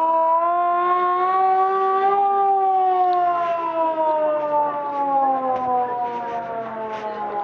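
A siren wailing: one loud pitched tone that rises slowly for about two seconds, then sinks gradually. Short sharp clicks or rattles sound over it from about three seconds in.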